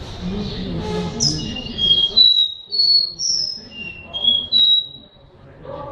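Caged caboclinho, a small Sporophila seedeater, singing a phrase of about eight clear, high whistled notes, some held level and some sliding down, starting about a second in and lasting some three and a half seconds.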